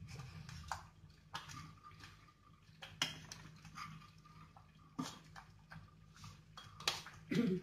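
Metal spoon stirring thick, simmering dal in a stainless steel pot: scattered soft clinks and wet plops, over a low steady hum.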